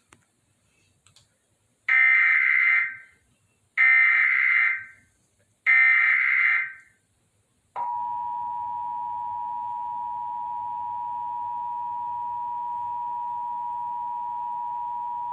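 Emergency Alert System monthly test signal: three short, screechy SAME data header bursts about two seconds apart, then, from about eight seconds in, the steady two-tone EAS attention signal held unbroken.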